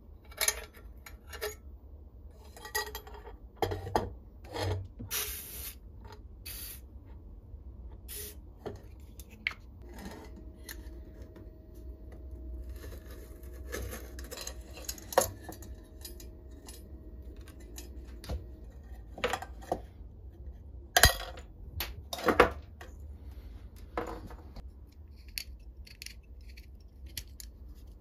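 Thin sheet-metal parts of an old oil hurricane lantern clinking, tapping and rattling as it is taken apart by hand and with pliers: a run of light metallic clicks, with the loudest knocks about three quarters of the way through.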